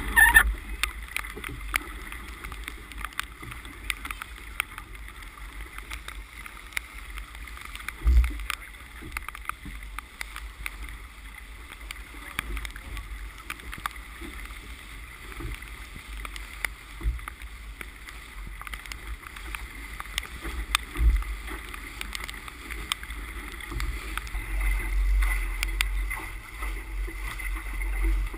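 Sailboat under sail: water rushing along the hull with a steady low wind rumble on the microphone, and two low thumps partway through.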